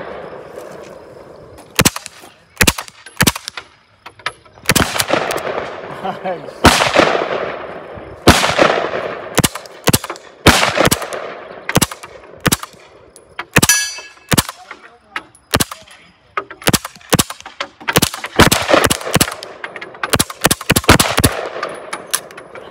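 Badger Manufacturing MP5 SD, a 9mm carbine with a built-in suppressor, fired in a string of single shots at uneven spacing. The shots are short suppressed cracks, several of them followed by a long fading echo.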